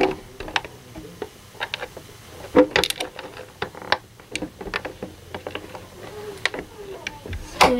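Irregular plastic clicks and taps from an RC monster truck's plastic body shell being handled and fitted back onto the chassis, with a cluster of louder clicks about two and a half to three seconds in.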